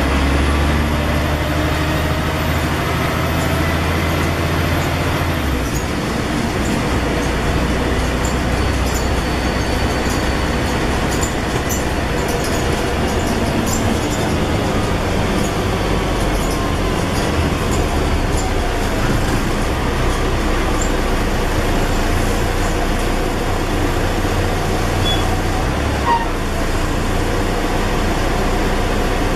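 Scania N113 double-decker bus heard from on board while driving: the engine runs with a low steady tone that changes about five seconds in, then continues under road and running noise with light interior rattles.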